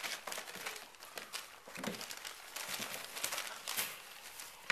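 Newspaper bedding crinkling and rustling in irregular crackly bursts as Goldendoodle puppies shift about on it.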